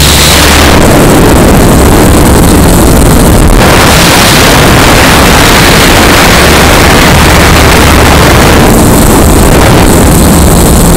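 Loud, distorted wind and rotor-wash noise on the onboard camera's microphone, over the steady hum of an XLpower 520 RC helicopter's motor and rotor blades in flight. The noise surges about half a second in and again a few seconds later as the helicopter banks.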